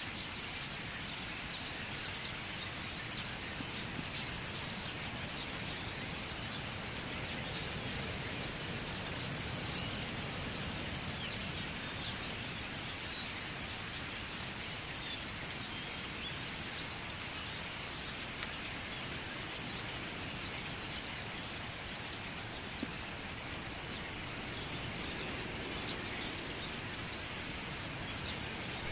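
Many forest birds chirping at once: a dense, steady chorus of short chirps over a constant background hiss.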